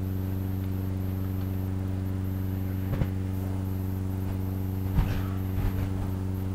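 Steady low electrical hum with several overtones running through the sound system, with a few soft thumps and rustles about three seconds and five seconds in as Bible pages are turned close to a handheld microphone.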